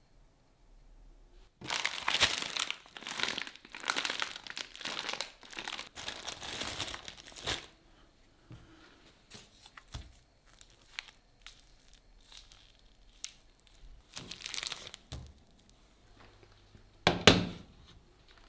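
Plastic food packaging crinkling and rustling in bursts as it is handled, with scattered small clicks. Near the end, a stainless saucepan is set down on a glass induction hob with a sharp knock, the loudest sound.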